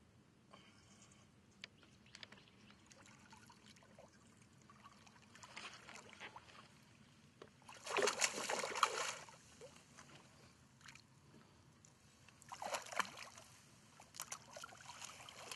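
A hooked largemouth bass thrashing and splashing at the surface. The loudest splash comes a little past halfway and lasts about a second, with a shorter splash a few seconds later.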